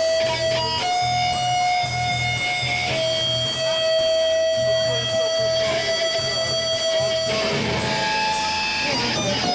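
Instrumental rock music: an electric guitar holding long sustained lead notes over a pulsing bass line, growing busier near the end.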